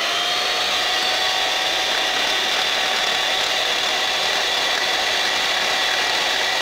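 Panasonic electric hand mixer running at a steady speed with an even motor whine, its beaters whipping instant coffee with sugar and a little hot water in a glass bowl.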